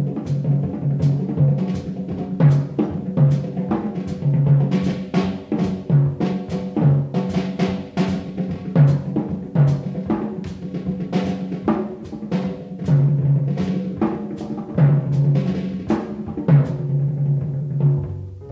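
Jazz drum kit solo: a fast run of strokes on low-tuned tom-toms and snare, with cymbal strikes.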